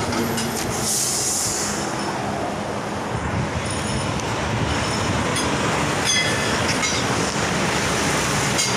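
Heavy highway traffic passing close by: a steady loud roar of truck engines and tyres on the road, with a brief hiss about a second in.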